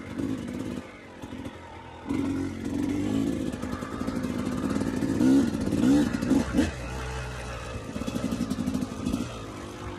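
Yamaha YZ250 dirt bike engine under way, the throttle opening and closing so the revs rise and fall repeatedly, loudest in the middle stretch.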